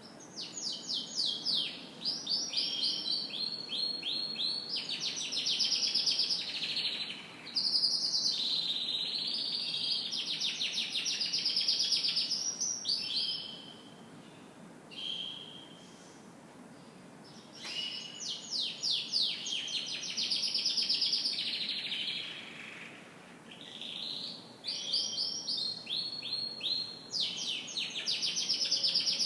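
Domestic canary singing in long bouts of fast, rolling trills and chirps. One short pause comes about halfway through, and a briefer one near the end.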